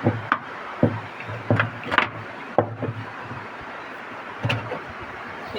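Irregular sharp knocks and taps, about ten of them spaced unevenly, from hands and tools working on a washing machine during a gearbox replacement, over a steady low hum.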